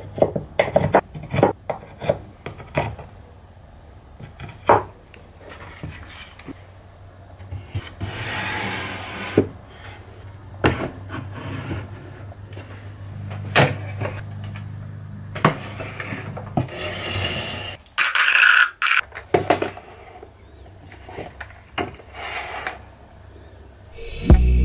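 Metal drill bits and tool accessories being set into holes in a wooden holder board and onto wooden shelves. First comes a quick run of small clicks and taps, then scattered knocks and a couple of longer scraping slides.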